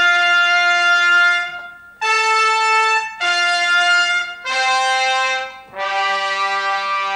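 Brass music with trumpets playing a slow phrase of long held notes, each separated by a short break, the last note held out.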